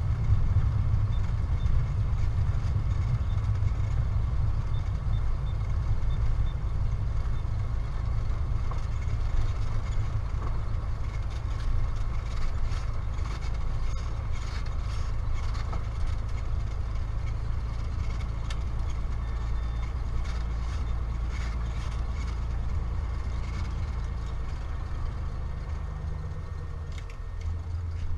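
Light single-engine propeller plane's piston engine running at low power while taxiing, heard from inside the cockpit, with scattered rattles and knocks from the airframe rolling over rough dirt ground.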